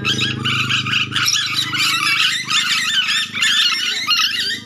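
Ornate lorikeets (nuri dora) chattering and screeching in a rapid, continuous stream of high calls, over a steady low hum.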